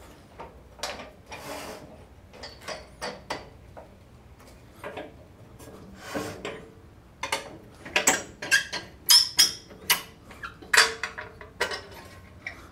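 Irregular metal clanks, knocks and rattles from the fittings and worktable of a 1954 Shopsmith Mark V being loosened, shifted and tilted upright by hand while it is set up as a drill press. The loudest clanks come in a cluster about eight to eleven seconds in.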